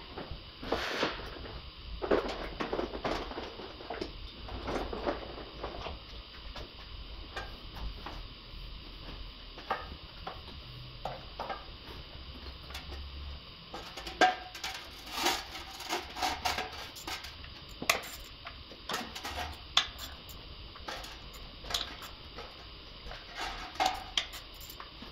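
Irregular metallic clinks and taps of hand tools being handled during engine-bay work, coming more thickly in the second half, over a steady workshop hum.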